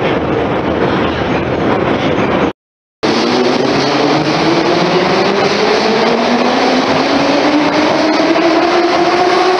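Metro train running noise heard from inside a moving car, then, after a short cut, a metro train pulling out of the station alongside the platform, its traction motors whining steadily higher in pitch as it gathers speed.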